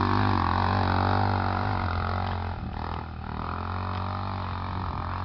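Sport quad (ATV) engine under hard throttle as the quad climbs a steep slope. It drones loudly, then drops in level about halfway through as the quad draws away up the hill.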